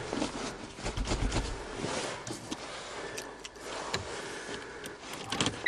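Handling noises inside a vehicle's cab: scattered light clicks, knocks and rustles, with a low thump about a second in.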